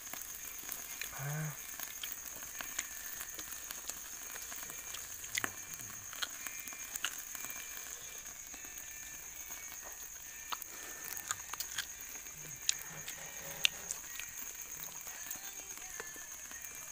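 Wood cooking fire crackling, with scattered sharp pops and clicks over a steady high-pitched drone.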